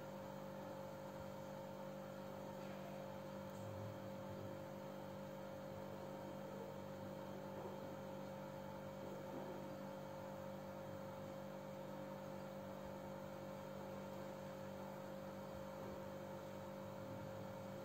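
Faint, steady electrical hum with a few unchanging tones, and no distinct cooking or stirring sounds.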